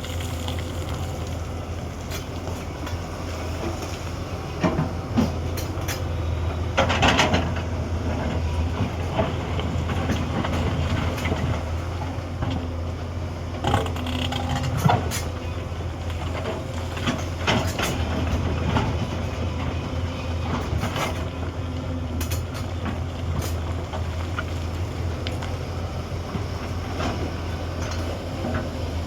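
Hyundai 210 excavator's diesel engine running steadily with a low drone while working, with irregular clanks and knocks throughout.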